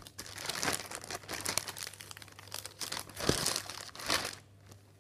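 Crinkling and rustling of clear plastic project packaging being handled. It comes as a dense run of crisp crackles, loudest a little after three seconds and again around four seconds, and stops shortly before the end.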